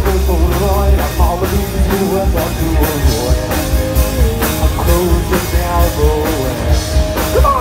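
Live rock band playing loud through a festival PA: drum kit, distorted electric guitars and bass, with a singer's voice over the top, heard from the crowd.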